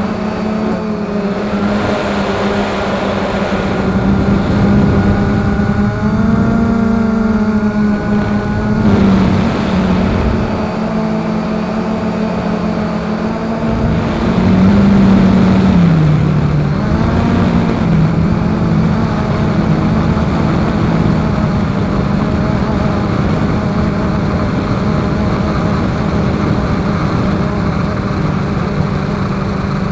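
XK X380 quadcopter's brushless motors and propellers whining steadily, recorded on board, the pitch wavering as the throttle shifts and dipping briefly about halfway through before climbing back.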